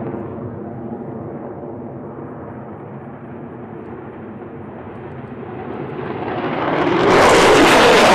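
Jet fighter engines: a steady droning whine with several stacked tones, easing slightly at first, then swelling. About seven seconds in, a much louder rushing jet noise cuts in abruptly.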